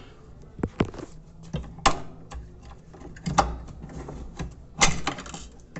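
Irregular sharp clicks and knocks of hard plastic parts as the agitator assembly is worked loose and pulled out of an Electrolux washing machine during disassembly.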